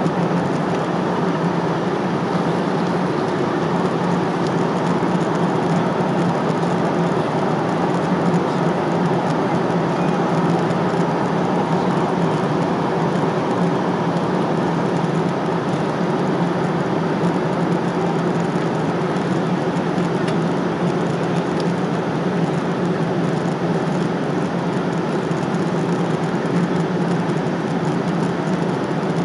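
Jet airliner cabin noise at cruise: a steady, unchanging rush of airflow and engines with a constant low hum underneath.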